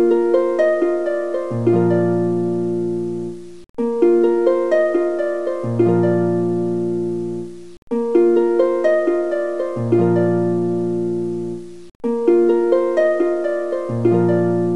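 Background music of plucked, harp-like notes: a phrase of about four seconds repeated over and over, with a brief break between repeats.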